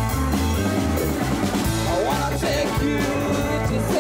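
Rock music with drum kit, guitar and a singing voice, playing steadily.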